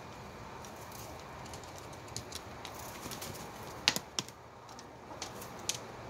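Scattered sharp taps and clicks of a flock of chickens pecking and scratching at food, the two loudest close together about four seconds in, over steady background noise.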